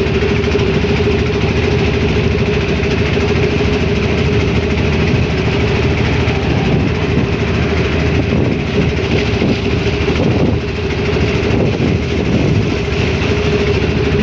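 Engine of a motorised wooden river boat running steadily while under way: a constant drone with one unchanging hum.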